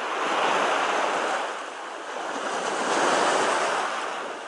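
Small sea waves breaking and washing up the shore, surging twice.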